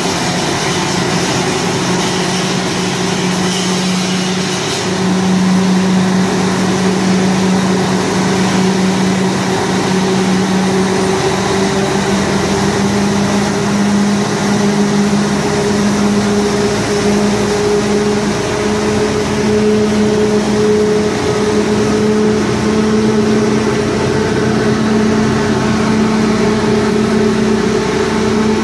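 Scania 113H truck running with its drive wheels turning on the rollers of a tachograph test bench, a steady drone whose pitch creeps slowly upward as the speed is brought up. It gets louder about five seconds in.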